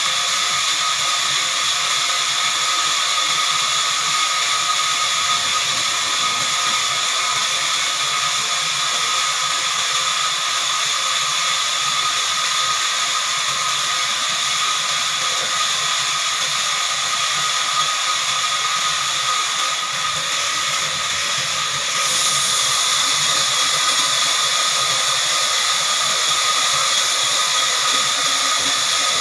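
Heavy-duty horizontal band sawmill running through a log: a steady high-pitched whine over a hiss. It gets a little louder and brighter about three-quarters of the way in.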